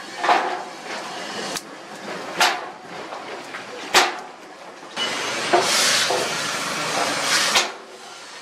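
Sharp single knocks and crackles around a charcoal forge. From about five seconds in comes a steady hiss lasting about two and a half seconds and ending in a knock: the hot leaf-spring steel cleaver blade being quenched in water.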